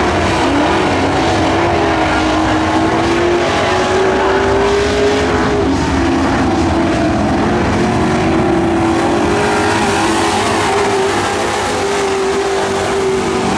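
Dirt-track pro trucks racing, their engines held at high revs, the pitch rising and falling as they go through the turns, with more than one engine heard at once.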